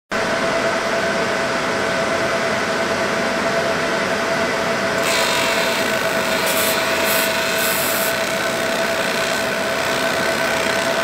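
Laser engraver running with a steady hum carrying two constant tones. About five seconds in a hiss joins as the laser starts burning marks into the pumpkin skin, with a few brief high crackles soon after.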